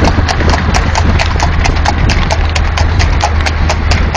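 Horse's hooves clip-clopping in a fast, even rhythm of about five strikes a second as it races pulling a tanga, over a steady low rumble.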